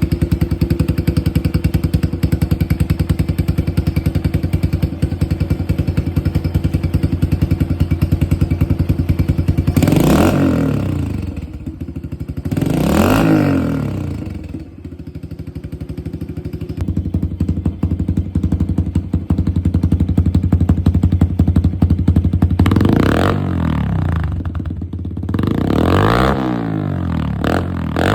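Small air-cooled single-cylinder four-stroke pit bike engine idling, then revved up and let fall back to idle: twice in the first half, and several more times near the end with a few quick blips.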